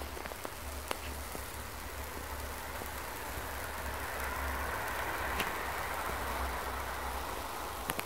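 Corona (partial discharge) from a high-voltage overhead line with twin-bundle conductors: a steady crackling hiss like light rain over a low hum, swelling a little midway, with a few sharp clicks.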